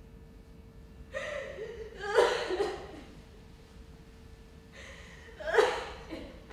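A person's voice: two loud wordless cries with breathy gasps, about three seconds apart, each falling in pitch. A faint steady hum runs underneath.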